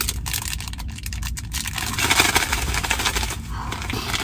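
Crinkling and rustling of a disposable hand-warmer packet being handled and opened, growing denser about halfway through, over a low rumble of wind.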